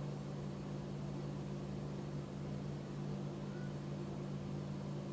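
Steady low hum over a faint hiss, unchanging throughout: room tone from an appliance or electrical hum.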